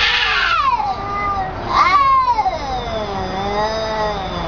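Domestic cats in an aggressive face-off, yowling. A loud, drawn-out call slides down in pitch during the first second. A second, longer yowl starts a little under two seconds in, rises, then falls and wavers for about two seconds.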